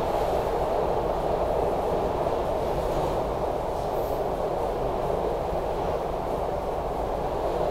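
SEPTA Broad Street Line subway car running between stations, heard from inside the car as a steady, even noise of wheels and running gear.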